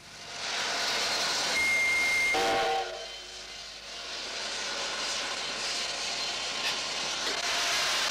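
Steady hissing noise, with a short whistle-like tone about two seconds in.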